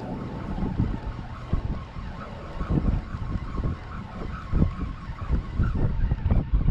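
Wind buffeting the microphone in uneven gusts, a rough rumbling rush.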